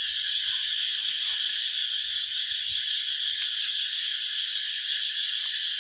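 Steady high-pitched chorus of insects shrilling, with faint soft rustles and knocks of plastic wrapping being pulled off an auger bit.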